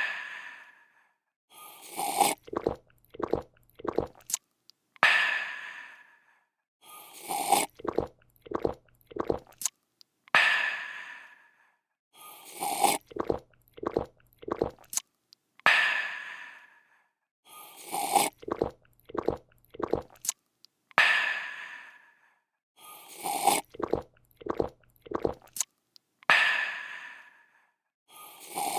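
A person slurping a drink, gulping several times, then letting out a breathy, refreshed "aah". The slurp–gulp–aah sequence repeats as a loop about every five seconds.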